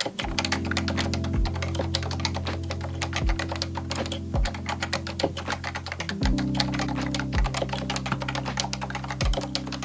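Fast, continuous typing on a Realforce R1 keyboard with Topre electrostatic capacitive rubber-dome switches, many keystrokes a second. Background music with a steady bass line and a low beat plays underneath.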